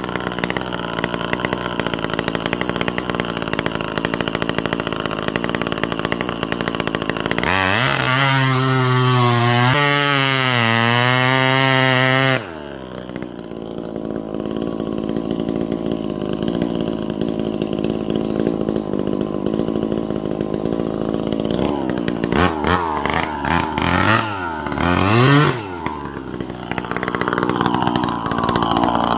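Two-stroke chainsaw cutting into a sengon tree during felling: it runs steadily, then holds a high, even pitch for several seconds, drops sharply to a lower, quieter running about twelve seconds in, and later revs up and down in quick sweeps.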